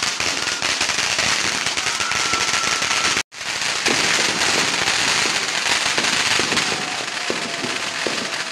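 Dense New Year's firecrackers and fireworks crackling continuously, a thick mass of overlapping pops with no let-up. The sound drops out for an instant about three seconds in.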